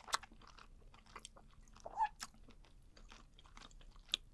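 Close-miked chewing of webfoot octopus: wet mouth clicks and smacks at an uneven pace, with a few sharper clicks near the start, about two seconds in and near the end.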